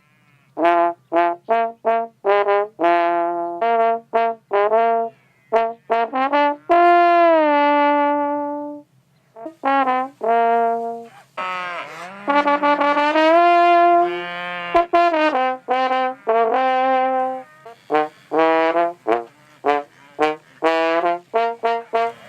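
A brass instrument playing a melody of mostly short, separated notes, with a few longer held notes that bend and slide down in pitch.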